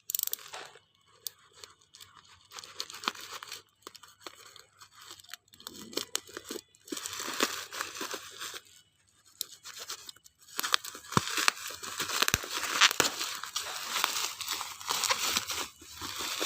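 A shipping parcel's plastic packaging being torn open and crinkled by hand: irregular tearing and rustling with sharp crackles, pausing briefly a few times and busier in the second half.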